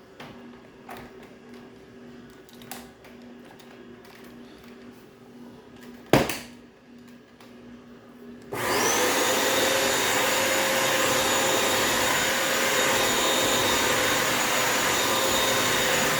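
Bissell vacuum-mop floor cleaner starting up about eight seconds in and then running steadily with a whine, after a quiet stretch with a few clicks and one loud knock.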